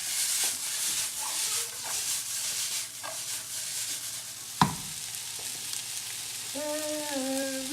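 Food sizzling and frying in a hot pan, with a steady high hiss. There is a single sharp knock about four and a half seconds in.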